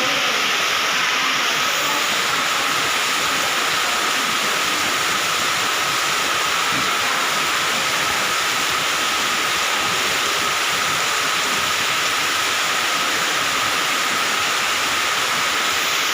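Heavy rain pouring down in a steady, unbroken rush of noise.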